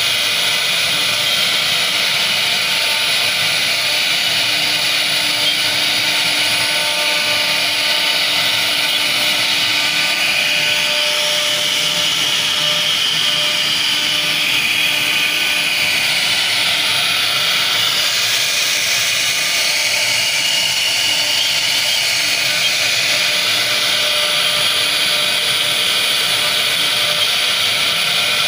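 CNC router spindle running at a steady whine while its bit carves a relief into solid wood, the cutting noise swelling somewhat in the middle.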